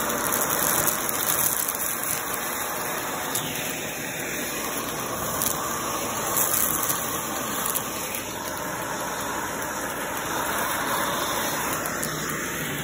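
Shark vacuum cleaner running steadily as its nozzle sucks up a pile of plastic beads, sprinkles and lint from carpet: an even rushing noise with scattered small clicks and rattles as the hard bits are drawn in.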